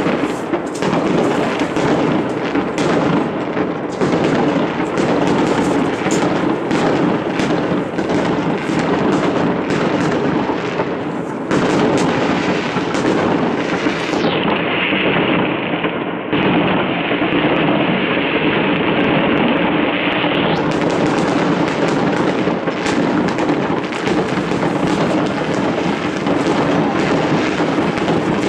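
Many aerial fireworks going off at once: a dense, unbroken barrage of bangs and crackling over a steady rumble. It sounds duller for about six seconds midway.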